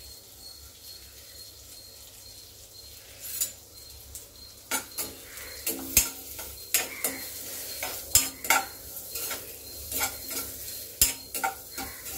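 Diced carrots sizzling softly in oil in a stainless steel kadai. From about three and a half seconds in, a steel spoon stirs them, clinking and scraping against the pan in a run of sharp knocks.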